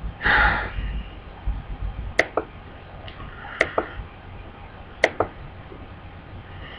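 A short breath or vocal sound at the start, then three pairs of sharp clicks about a second and a half apart.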